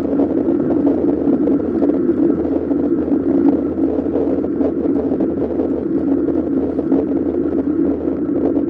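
Steady wind and road rumble on the microphone of a bicycle-mounted action camera while riding, a dull even noise without any distinct events.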